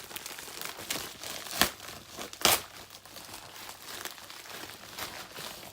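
Packaging crinkling and rustling as a parcel is unpacked by hand, with two sharp, louder crackles about a second and a half and two and a half seconds in.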